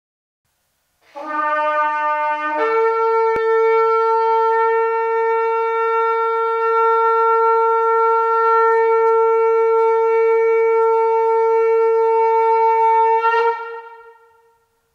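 A long curved shofar blown in one long, steady blast of about twelve seconds: it starts on a low note, jumps up to a higher note after about a second and a half and holds it, then stops, with a short echo dying away.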